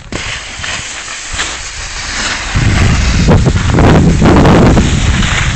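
Wind buffeting the microphone of a camera moving down a snow slope, with the hiss of snow scraping under a board. It turns louder and rumbling from about halfway through.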